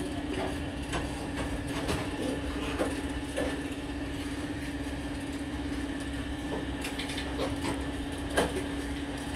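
Scattered light clicks and taps of plastic switch parts and small metal nuts being handled and fitted by hand, over a steady machine hum. The sharpest click comes near the end.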